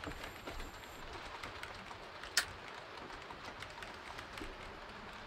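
A light switch clicking off once, a single sharp click a little over two seconds in, over faint room hiss.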